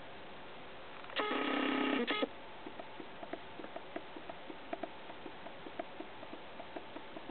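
A camera's zoom motor whirring for about a second as the lens zooms out, a steady multi-tone whine that stops abruptly. It is followed by a string of faint, irregular ticks over steady hiss.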